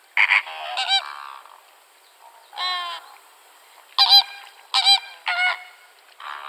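Geese honking: a run of short, nasal calls, several in quick pairs, with one longer drawn-out call a little under three seconds in.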